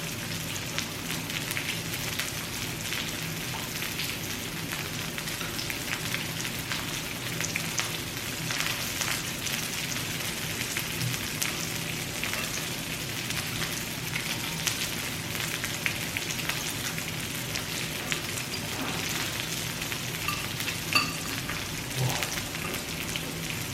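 Pork belly sizzling on a grill, a steady frying hiss full of small crackles and pops, with one sharper click near the end.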